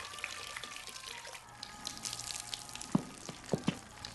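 A steady stream of liquid pouring and splashing, with three or four sharp knocks about three seconds in.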